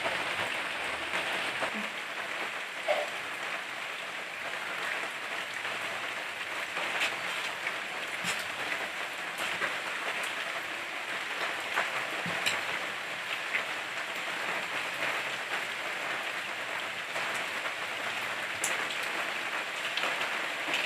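A steady hiss of rain, with scattered light ticks.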